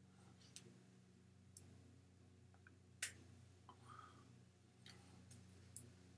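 Near silence: a steady low electrical hum with a handful of faint, sharp clicks scattered through it, the clearest about three seconds in.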